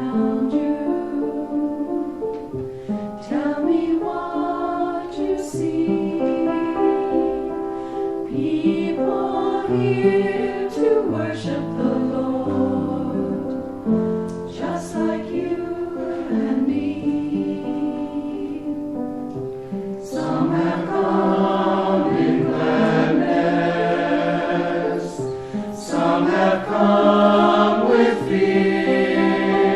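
A choir singing a hymn in sustained, slow-moving notes, the sound growing fuller and brighter about two-thirds of the way through.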